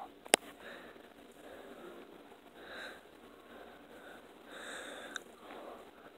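Quiet handling noise: a sharp knock about a third of a second in, a smaller click near the end, and soft rustling swells in between as a hand rubs a doll's hair close to the phone.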